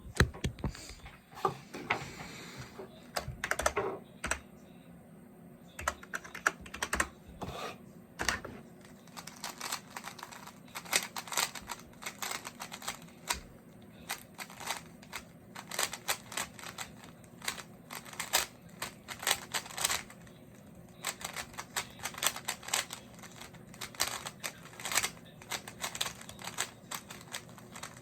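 Rubik's cube being turned rapidly by hand: its plastic layers click and clack in quick, irregular runs with brief pauses.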